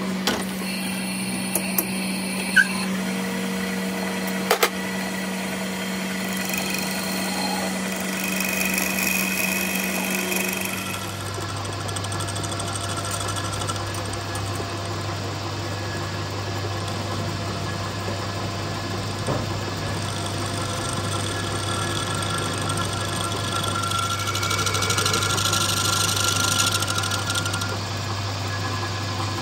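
Metal lathe running with a steady hum, its chuck spinning a brake caliper pin. A few sharp clicks come in the first five seconds, and about eleven seconds in the hum drops abruptly to a lower pitch.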